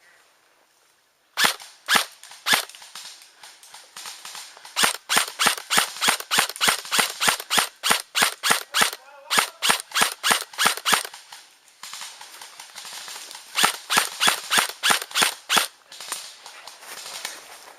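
Airsoft gun firing rapid single shots: three shots early, then a long string at about four shots a second, a pause of a couple of seconds, and another quick string.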